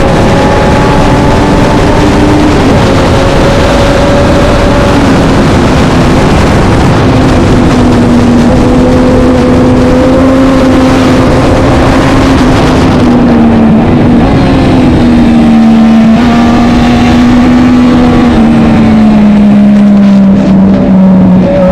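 Vintage road-racing motorcycle engine running hard and continuously, its pitch easing up and down, then falling gradually near the end as it comes off the throttle, over a heavy rush of noise.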